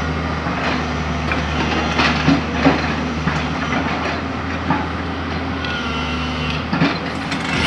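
Excavator engine running steadily, with metal clanks and thin squeals over it and a few sharp knocks about two to three seconds in and again near the end.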